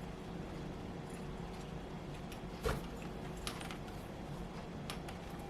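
Quiet room tone with a steady low hum, broken by a few faint clicks; the loudest click comes a little past halfway.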